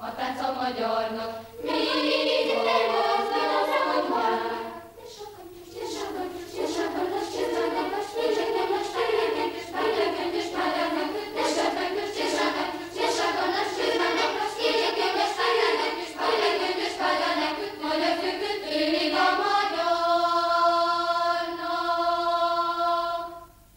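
Children's choir singing, ending on a long held note that cuts off just before the end.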